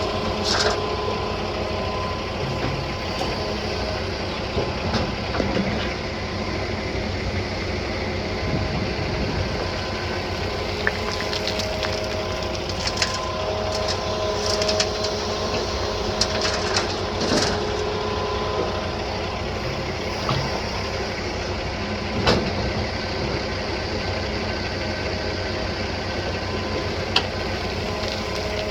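John Deere 210G LC excavator working as it loads gravel into a dump truck: a steady diesel engine drone with level tones that come and go, and a few sharp knocks and rattles scattered through.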